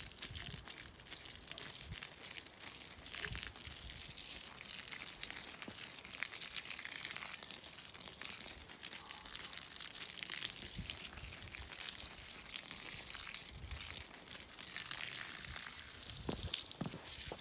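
Garden hose spraying water: a steady hiss with a crackling patter, with a few low thumps near the end.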